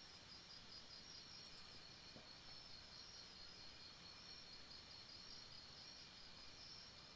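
Faint jungle ambience of insects chirping in a steady, pulsing high trill, with a short run of five very high chirps about four seconds in.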